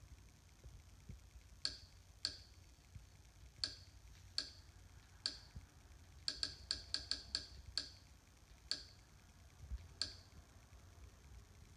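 Short, sharp, quiet clicks as a streaming-box menu is stepped through, one click per step, about fifteen in all at irregular spacing, with a quick run of about seven just past the middle.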